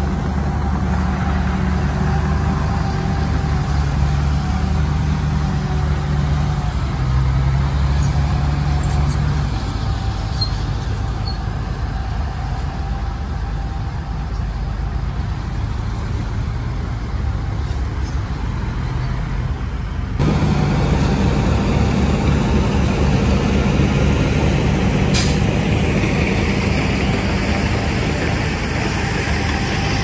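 Heavy diesel earthmoving machinery running steadily with a deep engine drone. The sound changes abruptly about twenty seconds in, and there is a single sharp clank a few seconds later.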